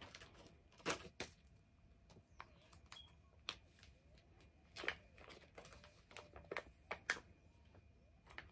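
Faint, irregular crinkles and clicks of a foil face-mask sachet being handled and torn open by hand.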